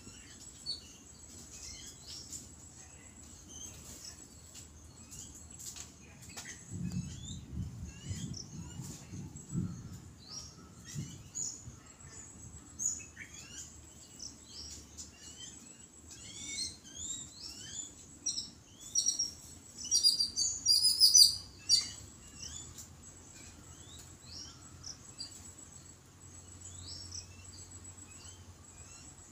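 Babblers chattering: a run of short, squeaky chirps, busiest and loudest about two-thirds of the way through. A low rumbling noise comes in for a few seconds about a quarter of the way in.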